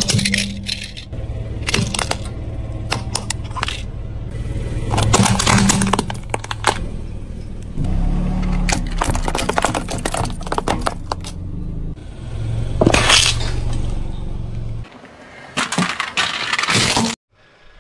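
A car tyre rolling over and crushing hard plastic items such as toys and sunglasses: repeated bursts of cracking, snapping plastic over a steady low hum, which stops near the end.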